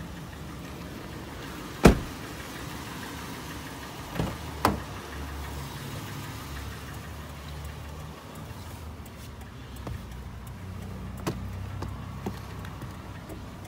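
Doors of a 2013 Toyota 4Runner being handled: a sharp loud clack about two seconds in, two duller thuds a little after four seconds, and a few light clicks near the end. A low steady hum from the SUV's idling engine runs underneath.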